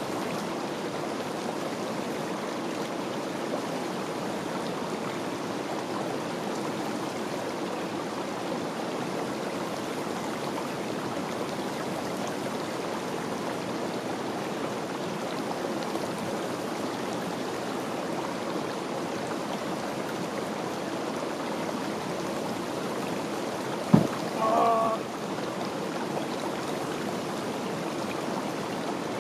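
Steady rushing of a stream. About 24 seconds in, a single sharp knock, followed straight away by a brief vocal cry from a person.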